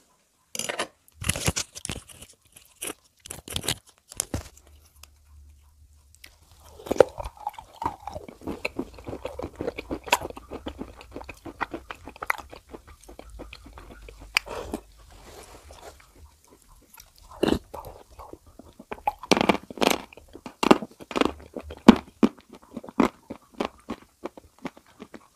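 Hard edible clay chunks mixed with clay paste being bitten and chewed. Clusters of sharp crunches come at the start and again in the last third, with a stretch of softer, steady chewing in between.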